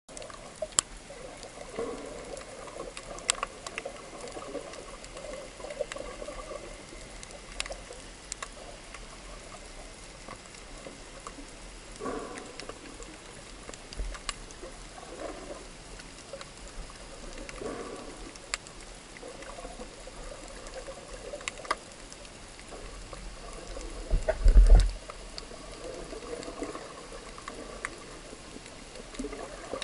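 Underwater sound as heard by a camera beneath the surface: muffled swishing of moving water with scattered sharp clicks, and a short, loud, low thump a few seconds before the end.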